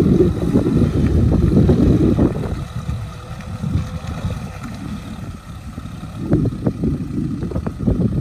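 Kubota M6040SU tractor's diesel engine running under load as it pulls a rotary tiller through wet paddy mud. It is a dense low rumble that eases off about two and a half seconds in and picks up again about six seconds in.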